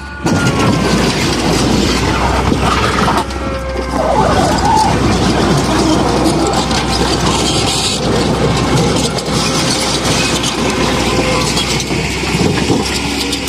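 Heavy machinery working broken concrete: an engine running under load amid continuous clattering and scraping of concrete rubble, with a brief lull about three seconds in.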